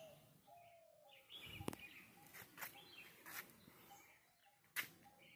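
Faint bird calls outdoors: short notes repeated over and over, with some higher chirps. Two sharp clicks, one under two seconds in and one near the end, are the loudest sounds.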